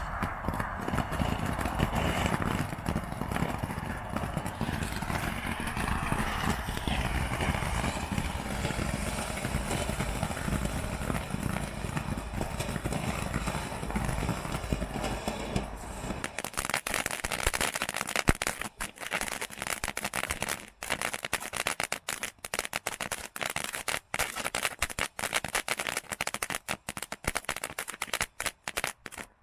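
Triple ground-fountain firework burning: a steady rushing hiss of spraying sparks that gives way a little past halfway to dense, rapid crackling.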